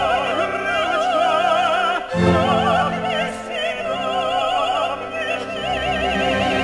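A woman's operatic voice singing long, high notes with a wide, even vibrato over a full symphony orchestra. The orchestra's low register swells in strongly about two seconds in.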